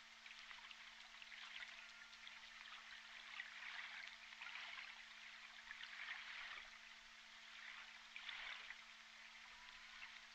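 Faint underwater hydrophone sound of J Pod killer whales: scattered clicks that bunch into short clusters a few times, over a steady crackling hiss and a low steady hum.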